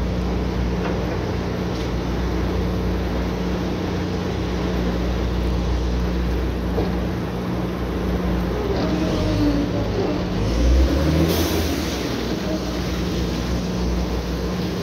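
Oil drilling rig's engines and machinery running with a steady low drone. About ten seconds in, a brief louder low surge, followed by a short burst of noise.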